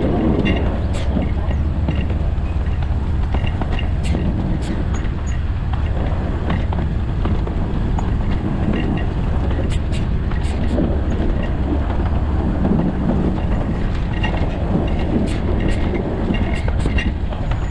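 A 2 ft 6 in narrow-gauge Alishan Forest Railway train running along the track: a steady rumble of wheels on rail with irregular sharp clicks from the rail joints.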